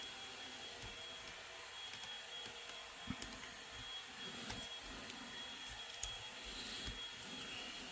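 Steady background hum and hiss with a thin high whine, broken by a few faint clicks and knocks of plastic toy parts being handled.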